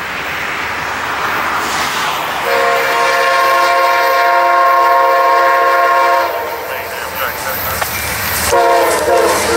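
Amtrak GE P42DC diesel locomotive approaching and passing at speed, its horn sounding a long chord of several notes, then stopping and sounding again near the end. The rising noise of the train runs under the horn.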